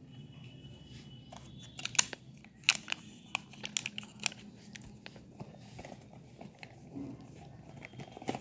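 Clear plastic bag around a coiled USB charging cable crinkling and crackling as it is handled, with a cluster of sharp crackles from about two to four and a half seconds in, then quieter rustling.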